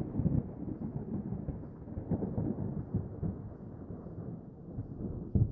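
A low rumble, with a dull thump near the end.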